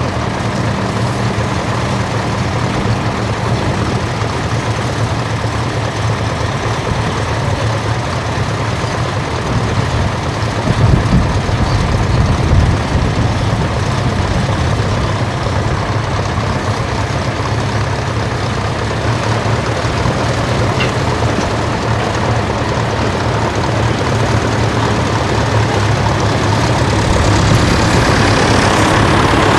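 Tractor engine running steadily with a low hum, growing louder for a couple of seconds near the middle.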